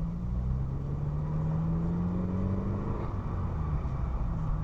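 Car engine and road noise heard from inside the cabin while driving slowly, a steady hum whose pitch rises gently for a couple of seconds.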